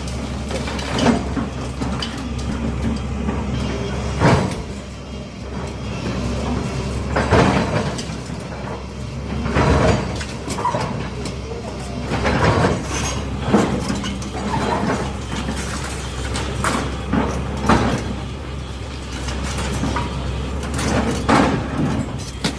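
A demolition machine's engine running steadily, with repeated sharp crashes and thuds as the house's masonry is broken down, about nine loud knocks spread through the stretch.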